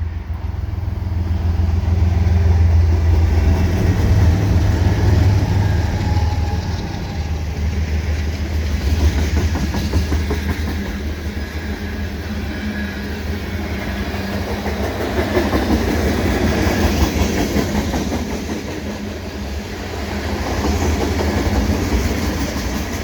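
A CN freight train passes at speed. In the first seconds the two GE ES44AC diesel locomotives give a strong low engine drone. After that, freight cars rumble and clickety-clack steadily over the rails, the rattle swelling and easing as cars go by.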